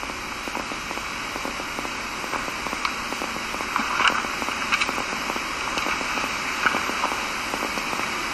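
Steady hiss of a noisy recording, with scattered faint crackles and clicks; a few slightly louder ones come about halfway through.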